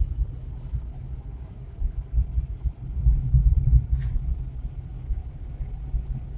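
Low rumble of a Suzuki Carry 1.0 pickup's four-cylinder engine and road noise, heard from inside the cab while driving, swelling louder about three seconds in.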